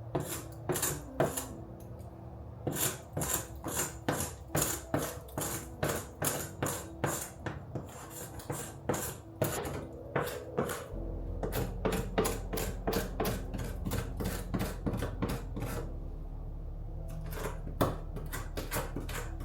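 Repeated short scraping strokes, paint being scraped and knocked off a door, about two or three strokes a second over background music.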